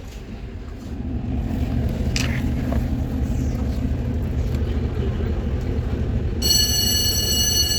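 Steady low rumble of a standing SGR passenger train coach, growing louder about a second in. Near the end, a high, steady electronic whine joins it.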